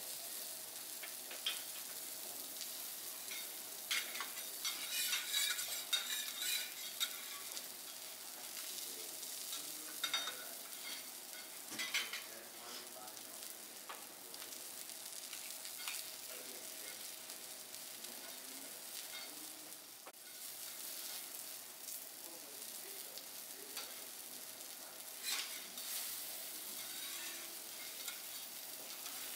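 Food sizzling on a teppanyaki steel griddle, with metal spatulas scraping and clacking on the plate now and then, busiest about four to seven seconds in.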